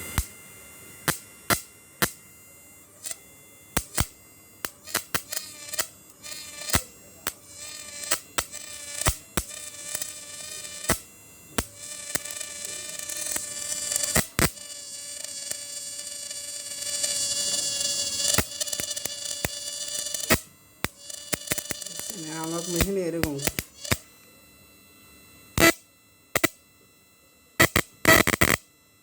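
Homemade electric fishing machine (a 12 V-to-high-voltage inverter) running with its electrodes in water: a steady electrical whine and hum whose pitch rises and falls, with a warbling glide a little after twenty seconds. It is broken throughout by frequent sharp clicks.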